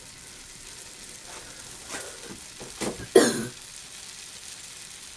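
Butter sizzling and bubbling as it foams in a hot frying pan, a steady fine crackling hiss. A brief, loud cough-like noise comes just over three seconds in, with a couple of fainter ticks before it.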